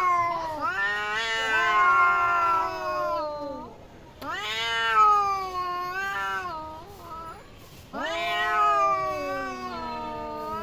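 Cats yowling in a fight: long, drawn-out wavering wails, about three of them, each bending up in pitch and then sliding down.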